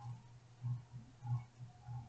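Soft, irregular low thumps, two or three a second, from a latch hook and rug canvas being worked by hand.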